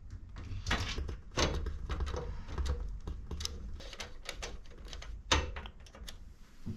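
Irregular clicks and knocks of computer parts being handled and fitted inside a PC case, with a sharper knock about five seconds in.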